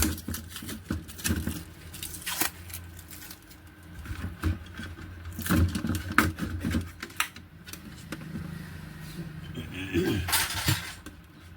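Irregular clicks, knocks and rustling from handling the LED TV's two speakers as they are pulled out of the plastic back cabinet and freed from the tape that held them in.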